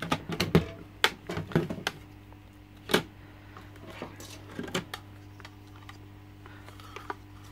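Plastic clatter and knocks from the media trays and lid of a SunSun HW-504B canister filter being handled and fitted together: busiest in the first two seconds, a sharp knock about three seconds in, and a few lighter knocks near five seconds.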